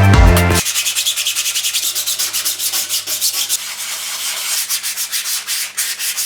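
Music cuts off about half a second in, giving way to rapid, rhythmic scraping strokes with a hissy, high-pitched sound.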